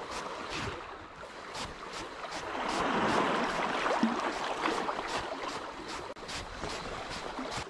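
Spinning reel being cranked to retrieve a lure, ticking about three times a second, over water lapping at the shore stones, which gets louder in the middle.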